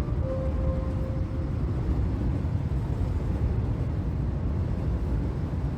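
Steady low rumble of outdoor ambience, with the last held notes of music fading out in the first second and a half.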